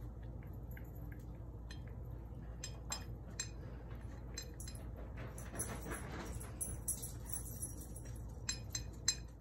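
Yorkshire terrier eating dry kibble from a bowl: faint, irregular clinks of food and teeth against the bowl, getting busier about halfway through.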